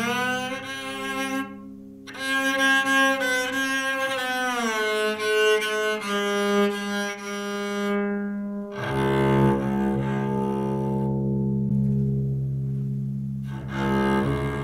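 Homemade electric cello being bowed: a phrase of notes with slides between pitches, with two short breaks, then one long low note held for several seconds before a new note starts near the end.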